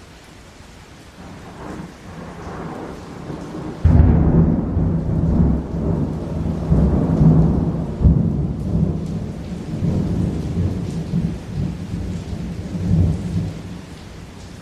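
Thunder over hard, steady rain: a low rumble builds, then a sudden loud clap about four seconds in rolls on for several seconds and slowly fades.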